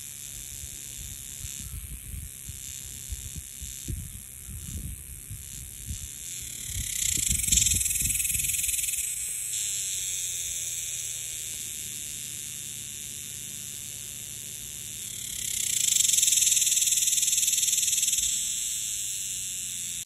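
Cicada buzzing: a steady high-pitched drone that swells louder twice, briefly about seven seconds in and again for about three seconds near the end. Low rumbling on the microphone through the first half.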